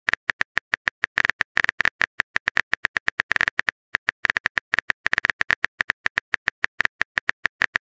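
Phone keyboard typing sound effect: rapid, irregular tapping clicks, about eight a second, as the next chat message is typed out.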